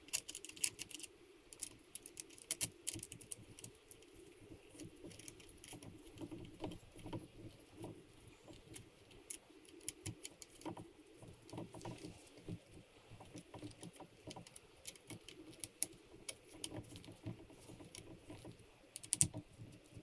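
Irregular small metallic clicks and ticks from fingers working the cap screws of a Leupold QR scope ring on a rifle, with the busiest runs near the start and shortly before the end.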